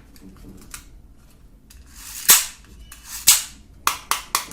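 Sharp plastic snaps and clicks from a toy AK-47 gun being handled. There are two loud snaps, each after a short scraping slide, then three quick clicks near the end.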